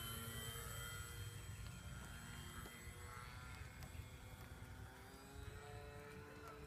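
Faint whine of a radio-controlled EPP foam eagle model's propeller motor in flight, its pitch drifting slowly, over a low rumble of wind on the microphone.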